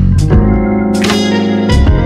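Instrumental music with a drum beat and a strong bass line.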